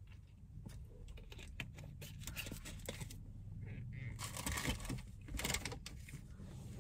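Quiet handling sounds: scattered small clicks and crackles of a plastic water bottle and its cap, then a louder crinkling rustle about four seconds in.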